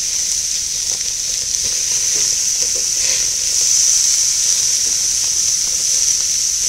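Marinated elk steaks sizzling on a very hot grill grate: a steady, high hiss.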